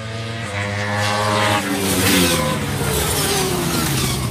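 Racing motorcycles at full throttle coming down the straight and passing, growing louder to a peak about two seconds in, then their engine notes dropping in pitch as they go by, with more engines following.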